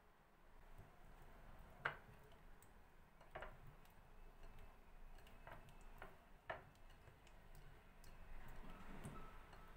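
Near silence broken by about five faint, sparse clicks or taps, a second or two apart.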